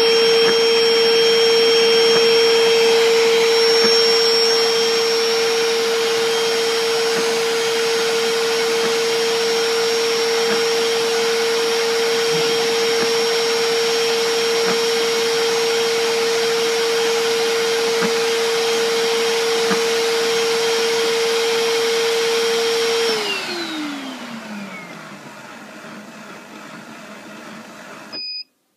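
Bissell SpotBot Pet portable spot cleaner's motor running with a steady whine, then spinning down about 23 seconds in, its pitch sliding down as it fades. A short high beep near the end.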